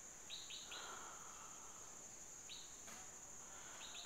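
Faint outdoor ambience: a steady high-pitched insect drone with short bird chirps that fall in pitch. Three chirps come in quick succession about a third of a second in, another about two and a half seconds in, and one more near the end.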